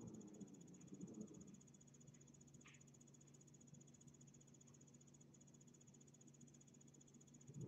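Near silence: faint room tone with a steady high-pitched whine and a low hum, and a single soft tick about three seconds in.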